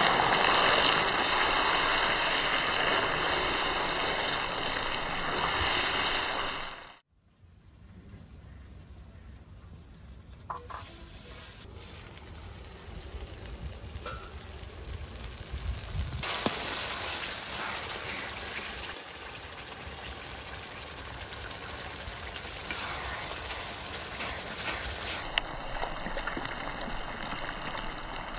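Cooking in a pan over the fire: a steady sizzling, bubbling noise, loud at first, then cutting abruptly to a quieter stretch that grows louder again about halfway through.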